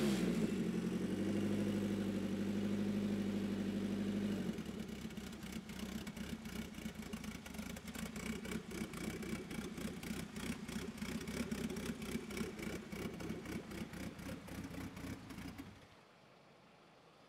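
Nissan SR20DET turbocharged four-cylinder, cammed and with a full exhaust, settling from a rev into a steady idle, turning choppy and uneven from about four seconds in, then stopping shortly before the end. The owner says the turbo is bad.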